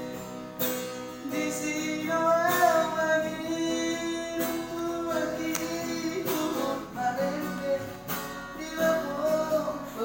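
Music: a strummed acoustic guitar with a voice singing long, wavering held notes.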